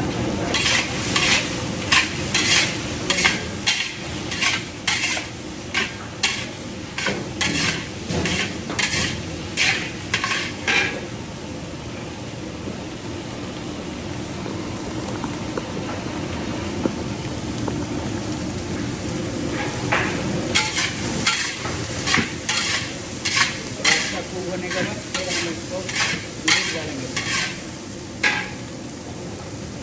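Shredded cabbage, carrot and peppers stir-frying in a large wok, with a steady sizzle. A metal spatula scrapes the pan in quick strokes, about two a second. The strokes stop for several seconds in the middle, then start again.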